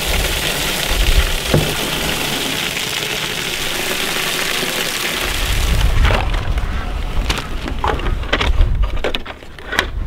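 Water gushing from a yard hydrant's spout and splashing into a plastic stock tank for about six seconds. Then scattered clicks and rustles of a boxed tank heater's cardboard and plastic packaging being opened.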